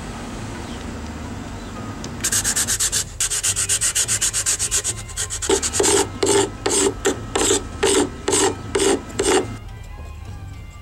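Knife blade scraping back and forth across stained pine, starting about two seconds in at several quick strokes a second, then slowing to louder strokes about two a second before stopping near the end.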